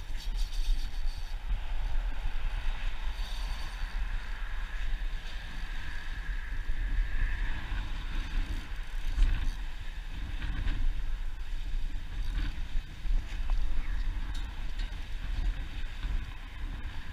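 Wind buffeting an action camera's microphone: a steady low rumble with a hiss of wind over open water.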